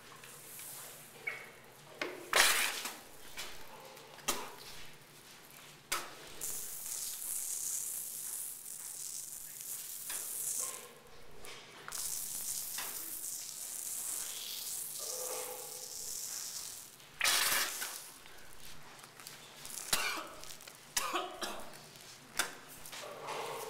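Aerosol spray-paint can hissing in a long spray of close to ten seconds and a shorter burst after it, with several sharp short sounds around it, the loudest about two seconds in.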